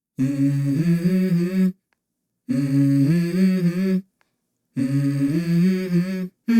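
A wordless sung vocal in the soundtrack music: three phrases of about a second and a half each, stepping in pitch, with short silences between.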